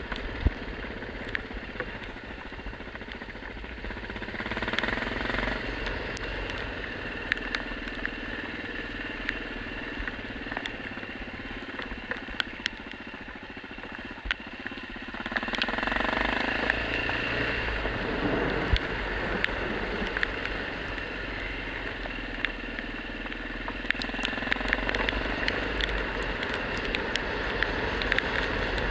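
Yamaha XT600's single-cylinder four-stroke engine running as the motorcycle rides, with the revs and loudness rising about four seconds in and again midway. Frequent short sharp ticks sound over it.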